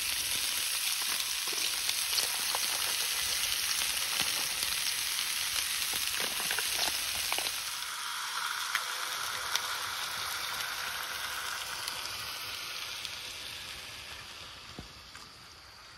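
Pork chops, zucchini and rice frying in oil in a cast-iron skillet: a steady sizzle that grows fainter over the last few seconds.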